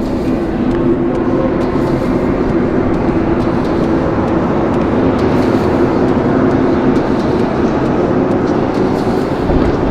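A steady, loud, engine-like vehicle drone: rushing noise with a couple of held low tones underneath.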